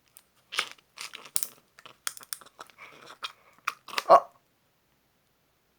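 A quick run of sharp crackles and clicks, close to the microphone, from handling and tasting a Kato watermelon drink with coconut jelly, ending in a short 'ah'.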